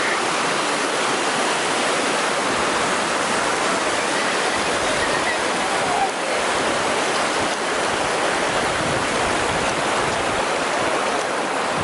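Loud, steady rush of a fast-flowing mountain stream, close by.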